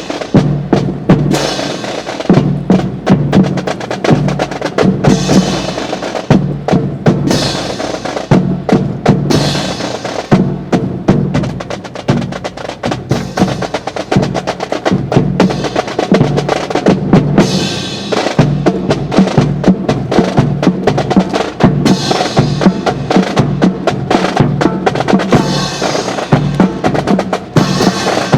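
Drum corps playing a continuous, rapid marching cadence on snare and bass drums, with sharp clicking strokes mixed in.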